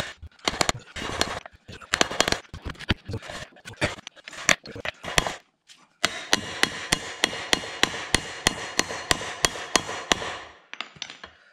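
Repeated hammer blows on metal, driving a seized universal-joint bearing cap out of a Volvo 940 driveshaft yoke. The first blows come irregularly. After a brief pause about five and a half seconds in, they settle into an even run of about three a second for several seconds.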